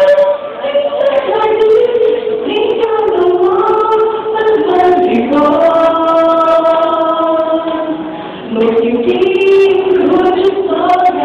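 A choir singing, with long held notes that step from pitch to pitch.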